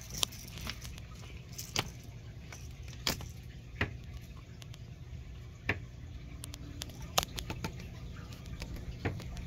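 A cat playing with a fabric lure on a string toy, grabbing and kicking it: scattered sharp taps and rustles, about seven, unevenly spaced. A steady low hum runs underneath.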